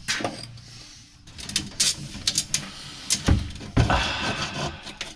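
Handling noise from a flexible dryer vent duct being worked onto its fitting: a run of sharp clicks and crinkling rustles, with two dull thumps a little past the middle.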